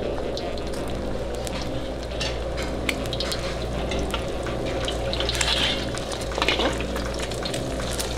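An egg frying in hot oil in a wok: a steady sizzle with many small crackles over a steady low rumble. About five to six and a half seconds in, as the wok is tipped to drain oil into a metal colander, the hiss briefly gets louder.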